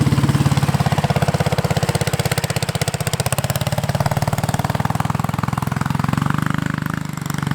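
Small engine of a homemade off-road cart running under throttle, with rapid, even firing pulses and a brief drop in loudness near the end.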